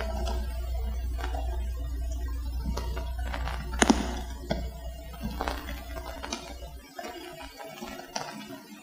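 A steady low hum on the recording that cuts off abruptly about seven seconds in, with scattered faint clicks and taps over it.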